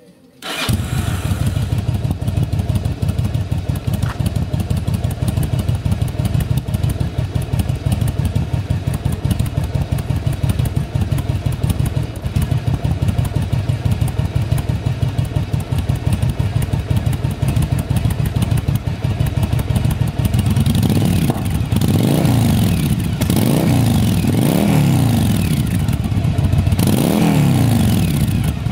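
Yamaha Drag Star XVS 1100's air-cooled V-twin, breathing through Silvertail K02 aftermarket mufflers, starting up at once and settling into a steady idle. From about two-thirds of the way through it is revved in a series of short throttle blips, the pitch rising and falling each time.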